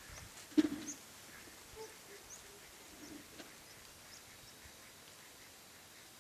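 A duck gives one short, loud quack about half a second in, with faint small-bird chirps scattered in the background.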